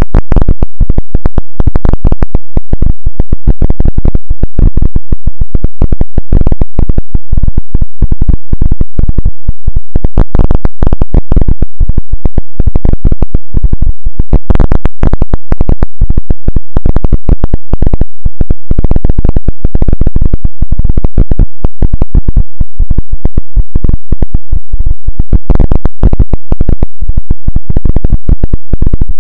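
Extremely loud, clipped, distorted electronic noise: a dense, rapid crackle of clicks, heaviest in the bass.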